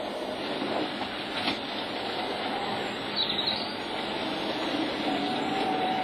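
Model train running on the layout: a steady whir of motor and wheels on the track, with a brief high squeal about three seconds in and a steady motor whine from about five seconds on.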